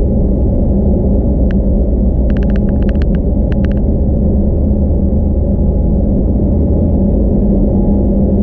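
Cabin noise of an Airbus A320neo taxiing on its Pratt & Whitney geared turbofans: a steady low rumble with a steady hum. A brief cluster of light clicks comes about two to four seconds in.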